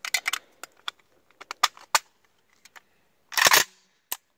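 Metal clicks and snaps of a Type 3 milled-receiver AK-47 being put back together by hand, with its parts clicking into place. Several sharp clicks come in the first two seconds, then one loud metallic clatter about three and a half seconds in, followed by a last single click.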